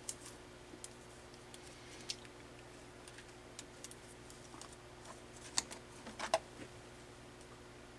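Faint scattered clicks and taps of small test leads and clips being handled and connected, with a few sharper clicks between about five and a half and six and a half seconds in, over a faint steady hum.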